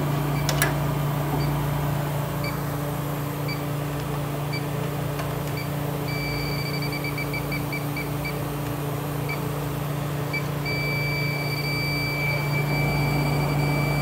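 Electronic refrigerant leak detector in super-sensitive mode, its probe at the evaporator coil's return bends. It ticks about once a second, beeps rapidly for a moment about six seconds in, slows again, then sounds a continuous tone from about eleven seconds in as it picks up refrigerant: the coil is leaking. A steady low hum runs underneath.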